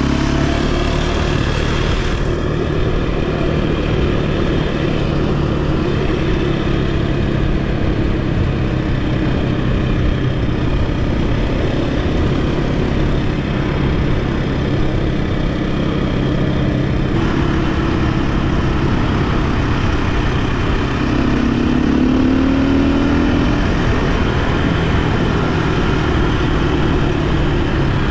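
KTM 520 dirt bike's single-cylinder four-stroke engine running steadily as the bike rides along, its note rising briefly about three quarters of the way through as the throttle opens.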